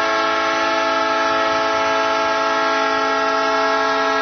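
Arena goal horn sounding for a home-team goal: one long, steady chord of several tones.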